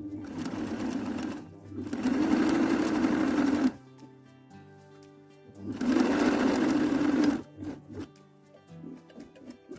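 Electric sewing machine running a straight stitch in three short runs, speeding up and stopping between them; the second and third runs are louder and last about a second and a half each.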